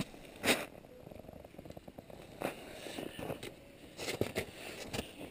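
Boots crunching on snow and icy slush around an ice-fishing hole, a few separate crunches, with faint rapid ticking in between.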